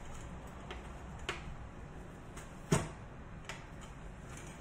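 Metal tongs clicking and knocking against the ridged plate of an electric contact grill while a grilled tortilla wrap is handled: a handful of light clicks, one louder knock a little past the middle, over a steady low hum.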